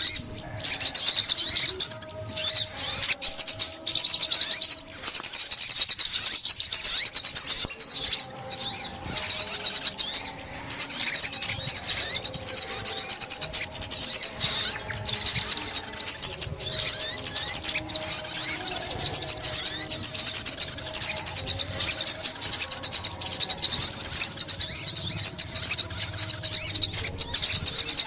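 Sunbird song: a continuous stream of rapid, high-pitched twittering and trilled notes.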